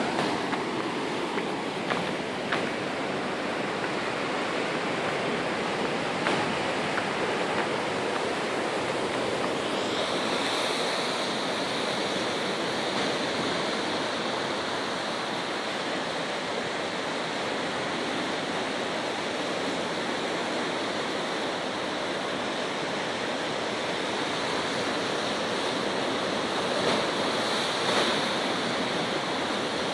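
Sea surf washing steadily against a rocky shore, an even rushing noise, with a higher hiss joining it about ten seconds in.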